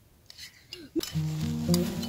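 A few faint clinks, like spoons against ceramic bowls, then background music starting about a second in with low sustained notes.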